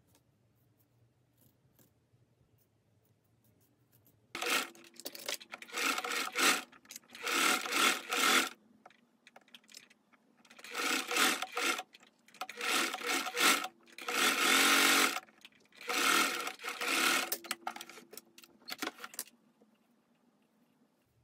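A small domestic electric sewing machine stitching in a series of short runs of about a second each, starting about four seconds in, with brief pauses between runs.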